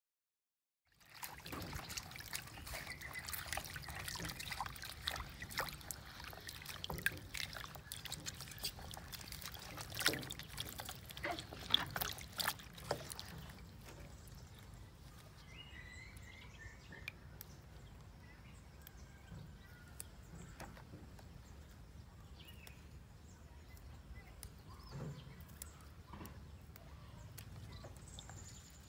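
Water splashing and sloshing in a plastic basin as leafy greens are rinsed and swished by hand, busiest in the first half and softer after. A few faint bird chirps come through about halfway in.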